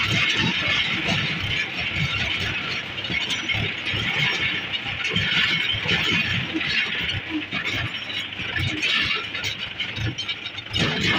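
Tractor engine running under way as the tractor drives along a rough dirt and gravel track, with uneven knocks from the ground.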